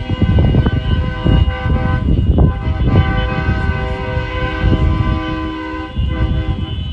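Several vehicle horns held together in a steady chord of tones, over an irregular low rumble.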